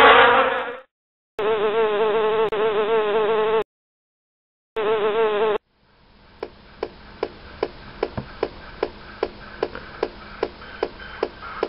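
Buzzing of a bee, a steady wavering drone in two stretches, the first about two seconds and the second about one, with silence between, after a short louder burst at the very start. From about halfway, music with a steady ticking beat of about two and a half beats a second fades in.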